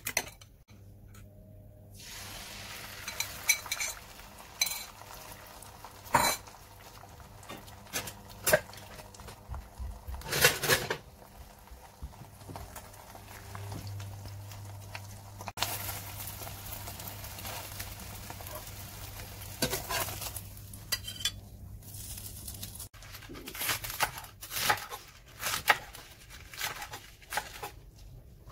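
A fork clicks briefly against a ceramic bowl as it beats eggs. Then beaten egg sizzles in a nonstick frying pan over a steady low hum, with occasional clinks and knocks of a utensil on the pan. Near the end come scattered knocks on a wooden cutting board as bok choy is handled.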